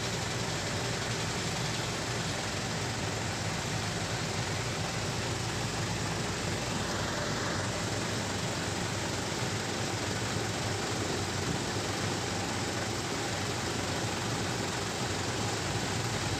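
Heavy diesel earthmoving machinery running steadily, a constant low engine hum under an even hiss.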